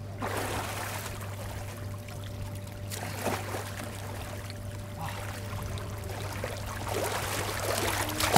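River water splashing and sloshing around a person wading through it, with the splashing getting louder near the end.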